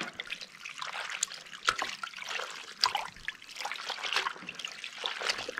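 A hand swishing pepper leaves around in a plastic basin of cold water: irregular small splashes and trickling water.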